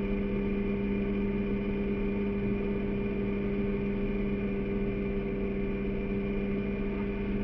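Outboard motor on a small aluminium boat running at a steady cruising speed, an even drone that holds the same pitch throughout.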